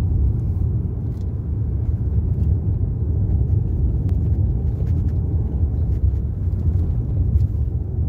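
Steady low rumble of a car's engine and tyres on the road while driving, heard from inside the cabin.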